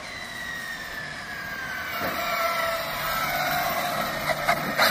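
Electric RC car with a large sensored brushless motor on 8S, its high motor-and-gear whine sliding down in pitch and getting louder as it drives across the lot. A few sharp clacks come near the end.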